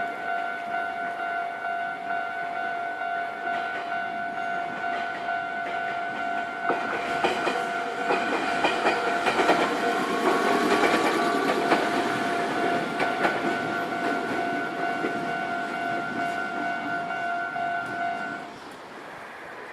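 Japanese level-crossing warning bell ringing its steady, repeating electronic ding while a Nankai electric train passes over the crossing, its wheels clattering over the rail joints, loudest around the middle. The bell stops near the end, leaving quieter background noise.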